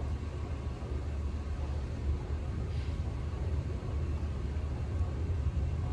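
Steady low rumble of an underground subway platform's background noise.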